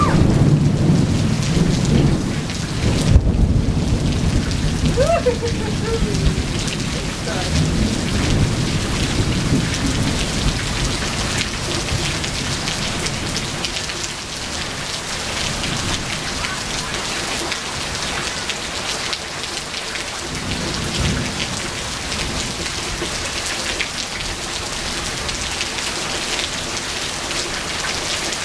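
Heavy rain pouring steadily onto pavement and grass. Thunder rumbles low through roughly the first ten seconds, with a sharp crack about three seconds in.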